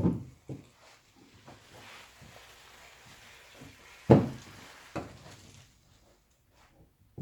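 Hand carving of wood: a knife shaving and paring the wood with a low, rough scraping, broken by several sharp knocks as the piece and tool are handled, the loudest about four seconds in.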